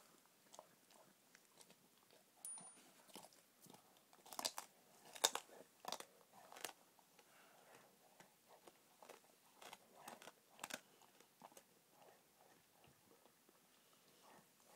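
Dog chewing a raw rabbit rack, bones crunching and cracking between the teeth in irregular sharp crunches, the loudest about five seconds in.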